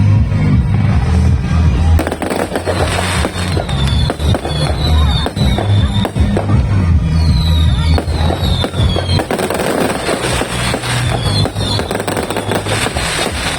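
A multi-shot fireworks cake firing a dense, rapid barrage of shots and crackles without a break, over loud music.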